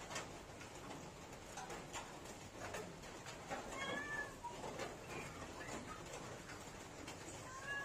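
Faint clicks and smacks of a hand eating rice and fried fish. A short pitched animal call sounds twice, about four seconds in and again near the end.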